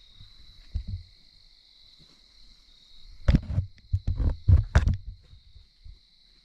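Steady high insect chorus of two even tones. Over it, a cluster of about half a dozen close, heavy thumps and knocks comes a little past three seconds in and lasts under two seconds.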